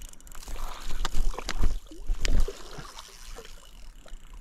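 A hooked bass splashing at the surface close to the bank as it is brought to the landing net. There is a cluster of sharp splashes and low thumps about one to two and a half seconds in, with lighter water sloshing around them.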